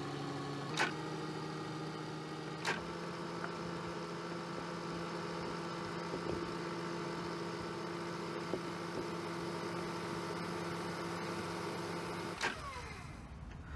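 VCR fast-forwarding a VHS tape: a steady whirring hum from the tape transport, with two sharp clicks in the first few seconds. About twelve seconds in, a click comes, the pitch drops and the whir stops.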